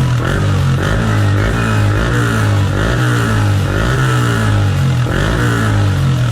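Yamaha R15 V3 single-cylinder motorcycle engine running through a newly fitted aftermarket exhaust, its pitch rising and falling in repeated revs, about one a second.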